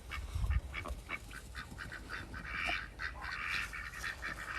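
A flock of ducks quacking in many short, rasping calls that crowd together more densely in the second half. A low bump on the microphone about half a second in.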